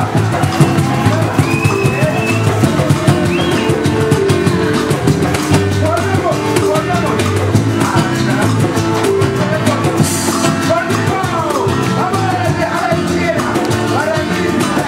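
A live band playing a song, with acoustic guitars and an electric bass under a steady percussion beat and voices singing over it.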